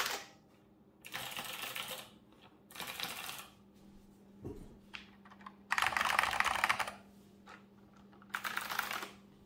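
Fast typing on mechanical keyboards in four short runs of rapid keystrokes with pauses between. The later runs are on an Azio Retro Classic resting on a keyboard tray, which brings out its bass.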